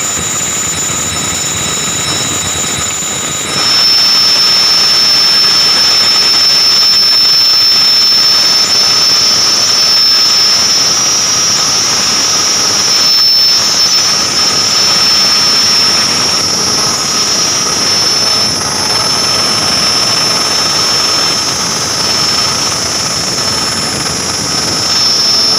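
Air-conditioner fan belt drive running with a steady whir and a thin, high-pitched squeal over it; about three and a half seconds in, the whole sound gets louder and the squeal shifts to a slightly lower pitch. The squeal is the abnormal noise coming from the fan belt.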